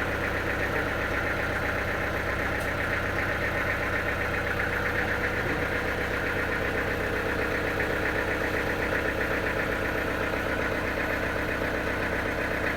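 An engine idling steadily, with an even rapid pulsing and no change in load.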